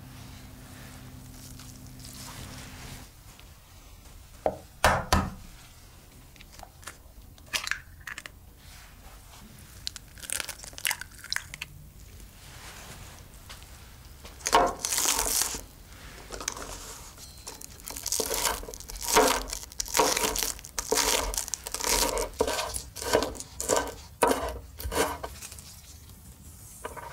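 Chef's knife slicing through green onions on a wooden board. A few scattered knocks and rustles come first, then about halfway through a quick run of crisp cuts.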